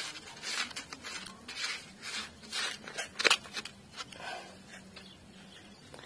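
Hand scraping and pressing coarse sand around plastic molds: irregular gritty scrapes and rustles, with one sharper click a little over three seconds in, thinning out over the last two seconds.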